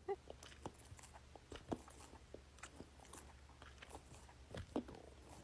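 Small dog licking, its tongue and mouth making faint, irregular wet clicks and smacks.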